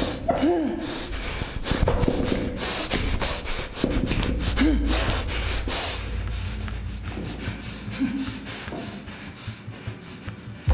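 A gagged man's muffled moans and heavy breaths through the nose as he struggles against his bonds, with scattered clicks and rubbing. A low steady rumble runs underneath.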